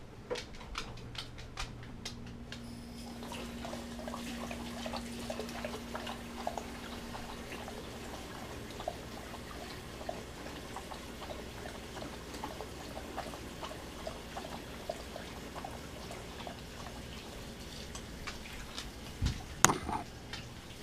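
A dog lapping water, a long run of small wet laps about two or three a second, with a sharp knock near the end.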